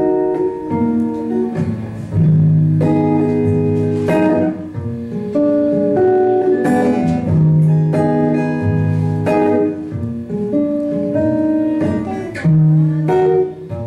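Acoustic guitar played solo: strummed chords every two to three seconds, with picked notes and bass notes ringing in between, as the instrumental intro of a folk song.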